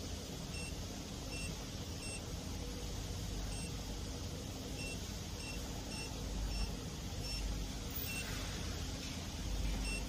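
Touchscreen control panel of a wire nail collating machine giving a short, high beep each time a button is tapped, about a dozen beeps at irregular intervals, over a steady low background hum.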